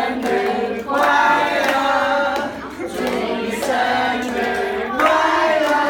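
A group of children and adults singing a birthday song together, in sung phrases with short breaks between them.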